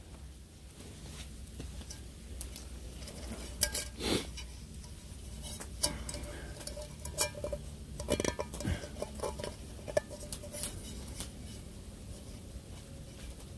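Titanium camp fry pan being handled: light metallic clinks and knocks at irregular moments, a few louder ones about four seconds in and around eight seconds.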